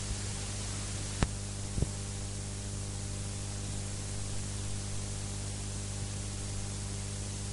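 Steady electrical hum with hiss, from the microphone and amplifier chain, with two short clicks about a second into the pause.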